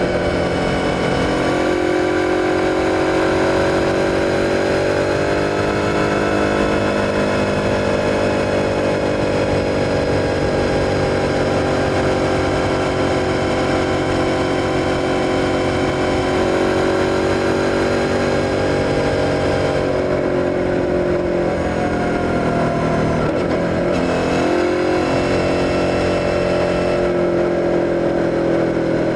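Suzuki SV650's V-twin engine running under way at fairly steady revs, with no wind noise. The pitch rises a little a few seconds in and dips briefly about three-quarters of the way through before climbing again.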